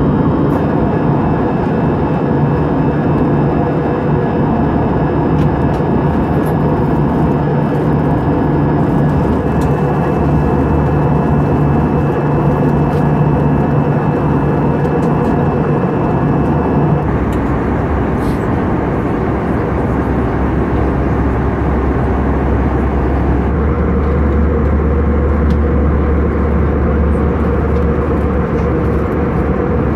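Steady cabin noise of an Airbus A320-214 at cruise, heard from inside the cabin: a continuous rush of airflow over a low engine drone from its CFM56 turbofans. The low drone shifts twice, about 17 and about 23 seconds in.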